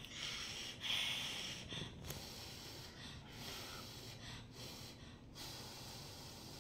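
A person blowing on hot food to cool it: short puffs of breath, the strongest about a second in.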